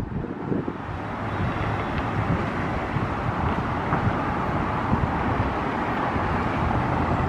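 Steady outdoor background noise of distant road traffic, an even rumble and hiss.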